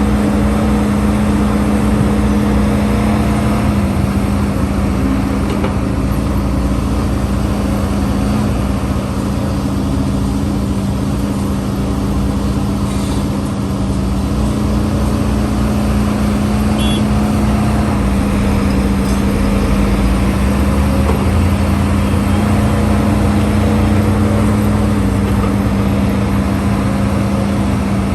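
Heavy diesel engine of a Hidromek HMK230LC excavator running steadily under working load. Its pitch steps slightly up and down every few seconds.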